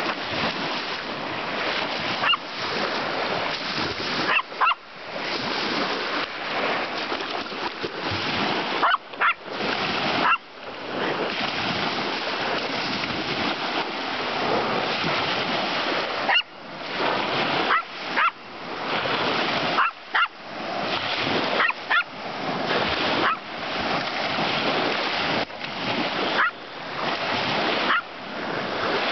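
Small white dog barking at small waves lapping onto a sandy beach: short, sharp single barks every few seconds over the steady wash of the surf.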